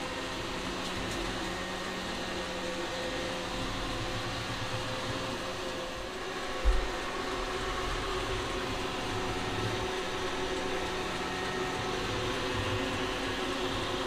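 VANiGO A3 robot vacuum cleaner running steadily while it cleans, a sound level meter nearby reading about 57 dB. One short, low thump comes about halfway through.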